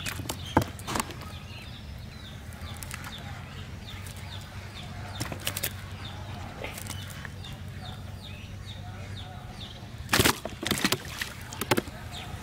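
Live fish flapping and slapping against a cast net and the wet grass as they are picked out of the net, with a few sharp slaps about half a second in and a burst of them near the end. Under it, a steady low hum and small repeated chirps.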